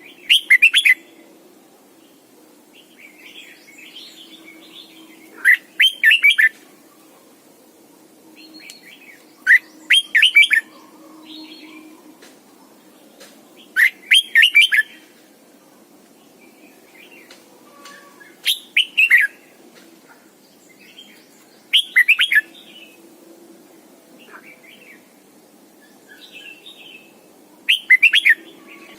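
Red-whiskered bulbul singing: short loud warbled phrases repeated about every four seconds, with softer chattering calls between them.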